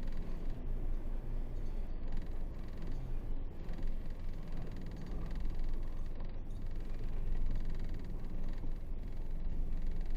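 Isuzu 8x4 heavy truck's diesel engine and running gear giving a steady low rumble while driving.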